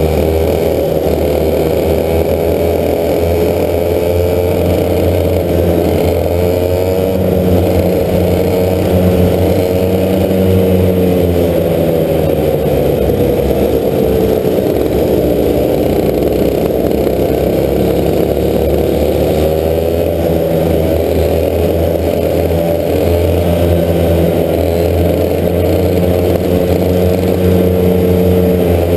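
Racing kart engine heard onboard at race pace, its pitch rising and falling every few seconds as the kart accelerates out of corners and slows into them, over a steady low drone.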